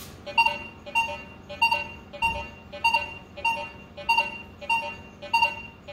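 Minelab Vanquish 540 metal detector sounding a short target tone on each back-and-forth sweep of its coil over a coin hidden among iron nails, about nine even beeps at a little under two a second. This is an iron-unmasking test in relic mode with low iron bias: each beep is the detector picking the coin out from the nails.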